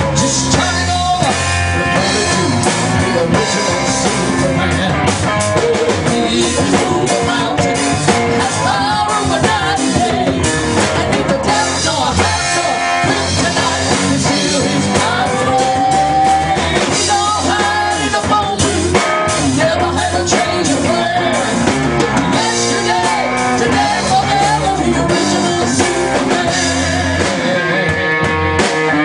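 Live gospel band performing a rock-style song: male and female lead vocals over electric guitars, keyboard and a drum kit, played continuously.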